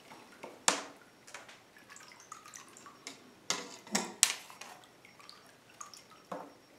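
Small splashes and drips of water in a bathtub as a lizard-shaped topwater lure is drawn across the surface. The splashes come irregularly, with a sharp one about a second in and a cluster of louder ones around the middle.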